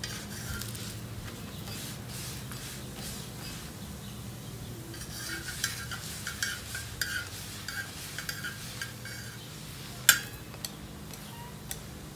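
Stainless steel spatula tongs scraping and clicking against a flat tawa as an oiled paratha is turned and pressed, over a faint sizzle and a steady low hum. The scrapes come thick in the second half, with one sharp clink near the end.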